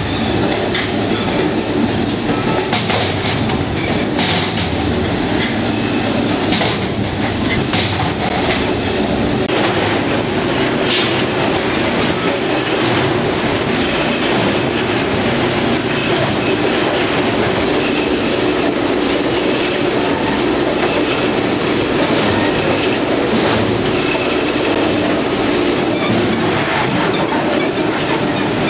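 Fish-processing depanning machine and its conveyors running, a steady loud mechanical clatter of metal rollers and pans. The sound shifts abruptly about ten seconds in and carries more high-pitched rattle after that.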